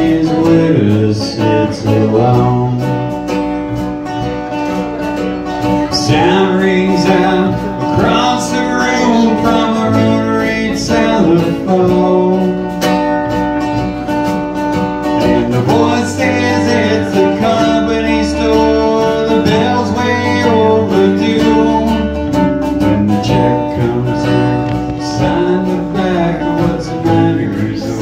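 Live acoustic song: acoustic guitar and plucked upright double bass playing together, with a man singing.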